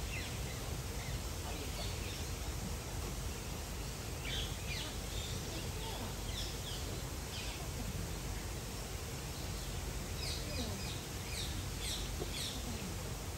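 Steady outdoor background noise with small birds calling in short, falling chirps, in a few clusters of several calls each.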